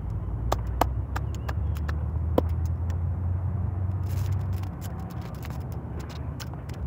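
Steady low rumble with scattered sharp clicks and crackles, the clicks coming thickest in the second half.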